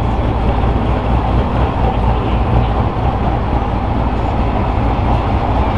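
A vehicle engine idling steadily, a deep even rumble.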